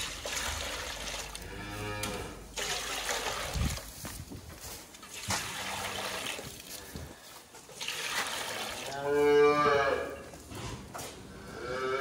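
Cattle mooing: a faint call about two seconds in, a louder moo lasting about a second around nine seconds in, and a short one near the end, over steady background noise.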